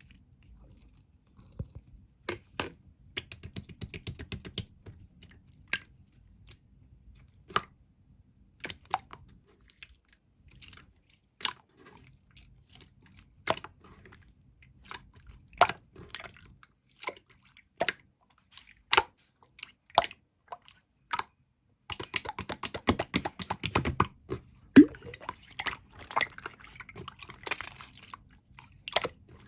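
Green slime being handled and pressed, giving sharp sticky pops and clicks at irregular intervals. A quick dense run of crackling pops comes about three-quarters of the way through.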